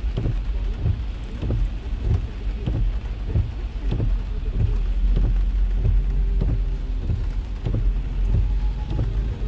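Heavy rain falling on a car's roof and windscreen, heard inside the cabin: irregular sharp drop hits, two or three a second, over a steady low rumble from the moving car.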